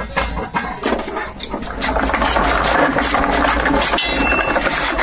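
A heavy welder on a wooden wheeled cart being moved, with a few knocks, then a steady rattling rumble from about two seconds in.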